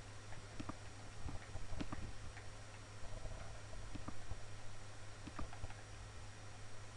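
Computer mouse clicking at irregular intervals, single sharp clicks a second or so apart, over a steady low hum.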